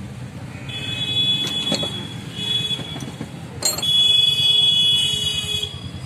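A high-pitched electric buzzer sounds in three spells: about a second long, then briefly, then for nearly two seconds as the loudest part. A sharp click comes just before the last spell.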